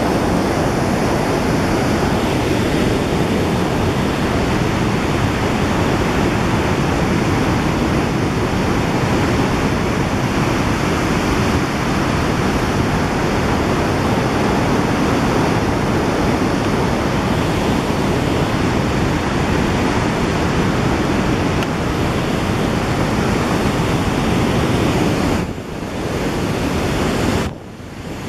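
Baspa River in full flow, fast whitewater rushing over rocks in a steady, loud, unbroken wash of noise. Near the end the sound drops briefly twice.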